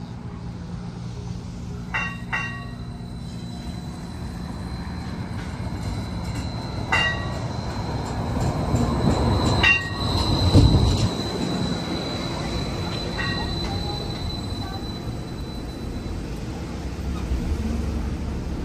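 Seattle Streetcar low-floor tram arriving and rolling past close by, with a steady high-pitched wheel squeal and several short metallic dings. Its low rumble grows loudest about ten seconds in as it passes, then eases off as it slows to a stop at the platform.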